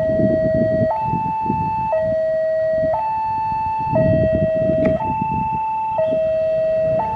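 Level crossing warning alarm sounding a steady two-tone signal, switching between a low and a high tone about once a second, over the low rumble of an approaching diesel locomotive hauling freight wagons.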